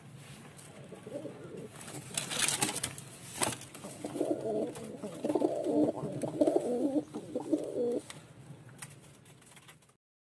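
Domestic pigeons cooing, with a longer run of low, rolling coos from about four to eight seconds in. A burst of scratchy rustling comes around two to three seconds in.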